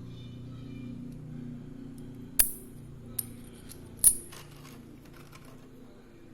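Small hard objects clinking: three sharp metallic clicks a little under a second apart, the first and last loudest, then a few lighter ticks. A faint low hum runs underneath.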